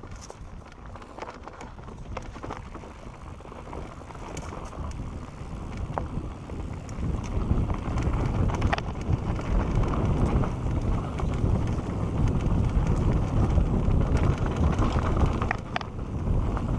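Mountain bike (Santa Cruz Bronson) rolling fast down a dirt singletrack: wind buffeting the camera microphone and tyre rumble, with scattered clicks and rattles from the bike. The rush grows clearly louder about seven seconds in as speed builds.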